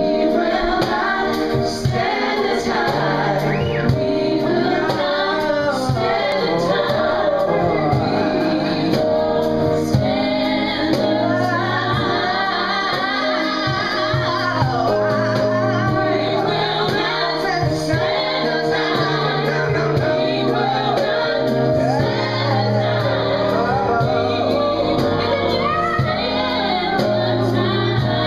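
Live band music with several singers, a woman leading and others, men and women, joining in together on handheld microphones, over instrumental backing.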